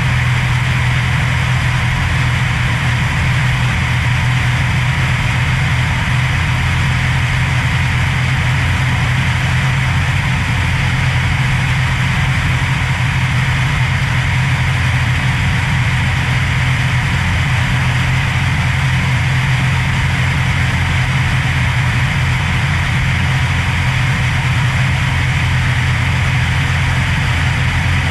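Cessna Hawk XP II's six-cylinder Continental IO-360 engine and propeller running steadily in cruise flight. A constant low drone with no change in pitch or power.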